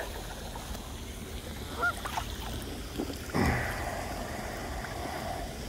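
Geese honking, a few short calls about two seconds in, over a faint hiss. A louder rushing sound starts about three and a half seconds in and lasts about two seconds.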